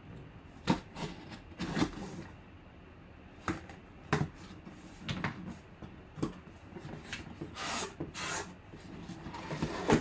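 Sealed cardboard box being slit open with a folding knife and its flaps pulled apart: scattered scrapes, taps and rustles of blade, tape and cardboard, two short rasping tears about three-quarters of the way through, and a sharp knock at the end.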